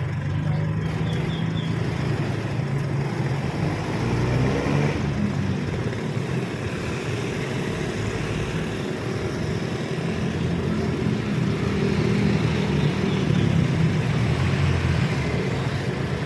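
A motor vehicle engine running steadily with a low hum. Its pitch shifts a little, and it grows slightly louder about three-quarters of the way through.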